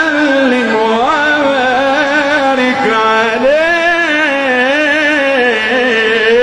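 A solo male voice sings an Islamic nasheed in long, drawn-out melismatic phrases, holding notes with a wavering vibrato and gliding between pitches.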